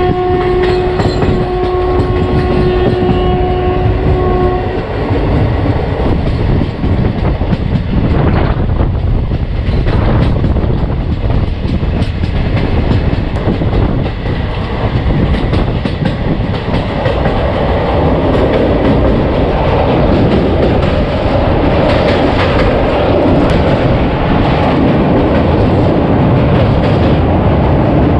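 Passenger train running at speed: steady wheel-and-rail rumble with clickety-clack, and the locomotive horn sounding one long steady blast over the first five seconds or so. About two-thirds of the way through, the rumble changes and grows fuller as the coaches roll onto a steel truss bridge.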